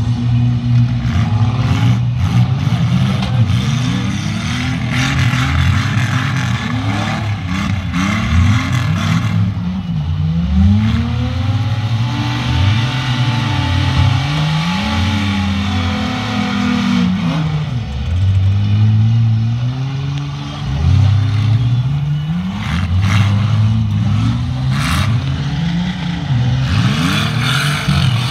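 Several six-cylinder demolition derby cars revving hard, their engine notes rising and falling over and over, with repeated bangs of cars crashing together.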